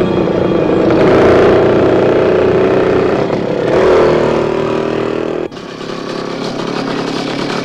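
Motorcycle engine running under load, its pitch rising twice as it accelerates. About five and a half seconds in the sound drops suddenly to a steadier, quieter engine note.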